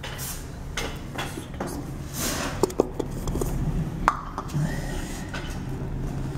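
Water dripping from a leak at a wall–floor joint: a few scattered small plinks and ticks, the clearest near the middle and at about four seconds, over a steady low hum and rustle.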